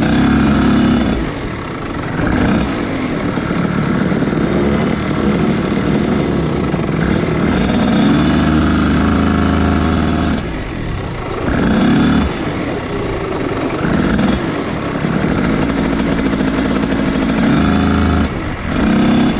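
Rotax junior kart's 125cc two-stroke engine idling and being blipped, its revs rising and falling several times.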